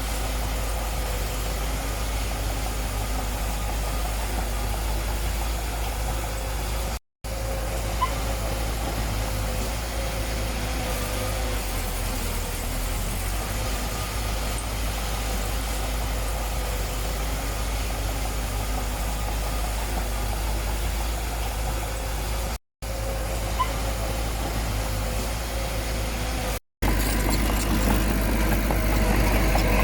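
Heavy construction-machine engine running steadily with a deep rumble, cut off by three brief gaps, and louder for the last few seconds.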